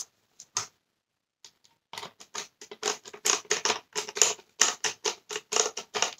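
Rapid small clicks, about five a second and starting about two seconds in, from a Torx screwdriver driving a screw into the plastic cyclone housing of a Dyson Cinetic Big Ball vacuum.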